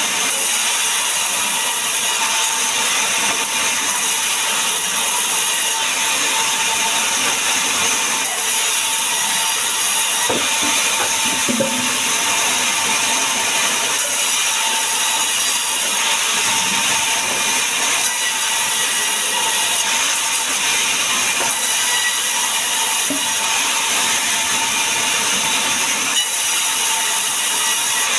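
Large sawmill band saw running and cutting lengthwise through a log fed along its steel table: a steady, loud sawing noise with a constant hum underneath.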